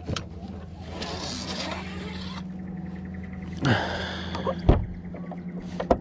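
Boat motor running steadily with a low, even hum. A few handling knocks and scrapes come through over it, the loudest a sharp dull thump a little before five seconds in.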